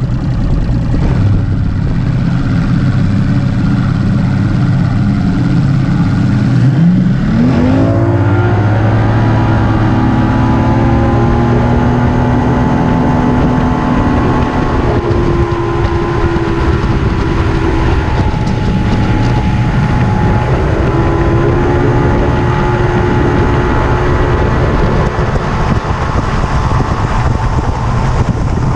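Mercury Optimax 200 HP two-stroke V6 outboard driving a bass boat, with wind and water rush. About seven seconds in, the engine note climbs quickly as the throttle is opened, then holds a steady higher pitch at running speed.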